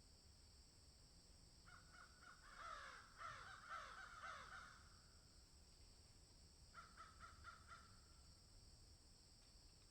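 A crowd of crows cawing. A flurry of overlapping caws comes from about two to five seconds in, then a shorter run of quick caws just before eight seconds. A steady high hiss sits underneath.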